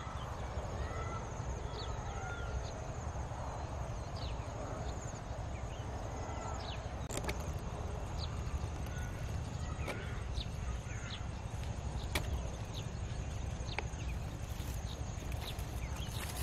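Outdoor countryside ambience: small birds chirping in short calls over a steady high buzz and a steady low rumble. A few sharp clicks come through around the middle.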